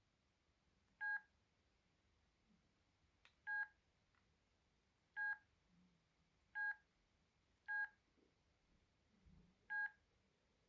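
Ericsson A2618s mobile phone keypad beeping as its buttons are pressed to step through the menus: six short, identical beeps at uneven intervals.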